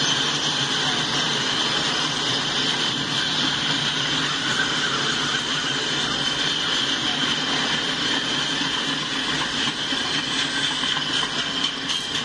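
Freight cars rolling past: steady noise of steel wheels on the rail with a steady high squeal, typical of wheel flanges squealing against the rail. Near the end, faint regular clicks of wheels over rail joints come in.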